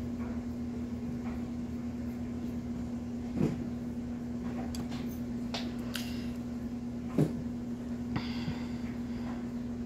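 A steady low hum, with two sharp knocks about three and a half and seven seconds in and a few lighter taps between: a vinyl doll head and paintbrushes being handled and set down on a table.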